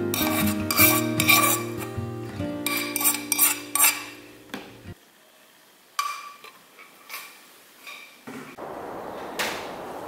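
A metal spoon scraping and clinking against a non-stick frying pan as stir-fried food is spooned out, a run of scrapes in the first four seconds over background music that stops about halfway through. A few fainter taps follow, then steady room noise near the end.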